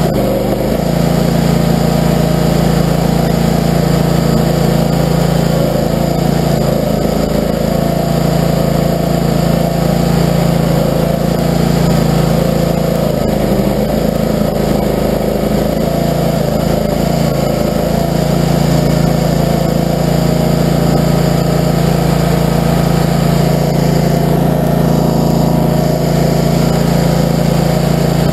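Barreto tracked stump grinder's V-twin gasoline engine running steadily at high speed while its cutter wheel grinds into a tree stump.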